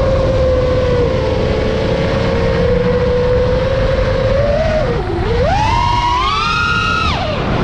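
iFlight Nazgul5 FPV quadcopter's brushless motors whining on a 6S battery, with heavy wind rush on the onboard GoPro's microphone. The pitch holds steady, dips about five seconds in, then climbs sharply as the throttle is pushed up and drops back near the end.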